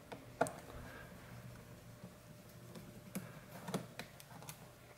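A handful of sharp clicks and taps from a screwdriver working the small T6 Torx screws out of a laptop's bottom cover and setting them down on it.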